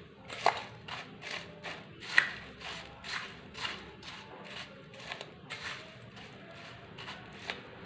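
Metal spoon stirring dry bhel mix of puffed rice and farsan in a stainless steel bowl: repeated scraping and clinking of spoon on steel, about three strokes a second, with a sharper clink about half a second in and another about two seconds in.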